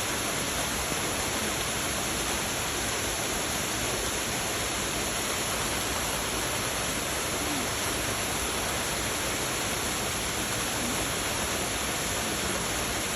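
Rushing mountain stream: a steady, even rush of running water.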